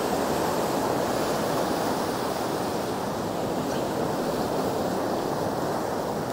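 Ocean surf washing up onto a sand beach: a steady rush of breaking waves and foam.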